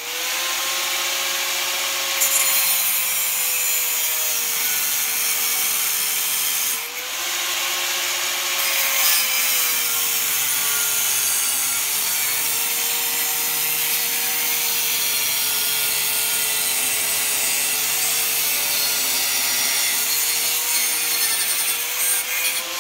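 Angle grinder with a cut-off wheel cutting through a steel tube: a steady motor whine over a harsh grinding hiss, the pitch sagging and recovering as the wheel bites, with a brief easing off about seven seconds in.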